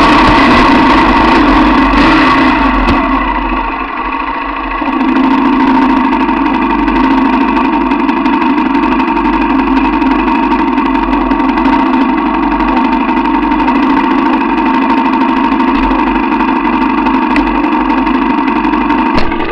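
Dirt bike engine running loud and steady as it rides along, easing off for a moment about three to five seconds in, then pulling again at an even pitch.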